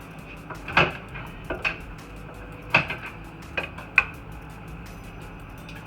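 Several sharp metallic clanks and clinks at irregular intervals, the loudest about a second in, near three seconds and at four seconds: tools and metal parts knocking together during work on a car's subframe.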